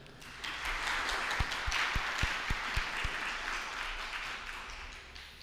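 Audience applauding, starting about half a second in and dying away over the next four or five seconds. A few dull low thumps come in the middle.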